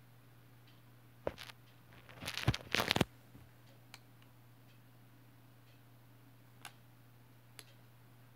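About a second of rustling handling noise close to the microphone, preceded by a sharp click, then a few faint single clicks from an Acer laptop's power button being pressed. The laptop does not power on.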